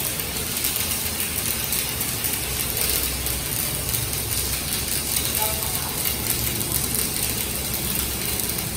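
Stick (shielded metal arc) welding arc crackling and sizzling steadily without a break as the electrode burns on the steel.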